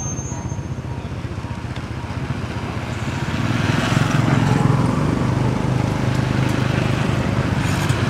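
An engine running with a steady low, pulsing rumble that grows louder about three and a half seconds in.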